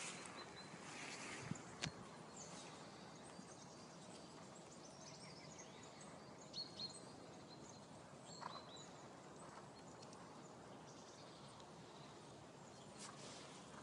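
Near silence: faint open-air ambience, with two sharp clicks about a second and a half in and a few short, faint high chirps in the middle.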